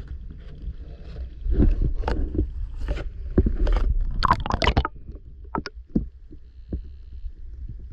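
Muffled water sloshing and gurgling around a submerged action camera, with a steady low rumble and irregular crackling splashes that are busiest around the middle.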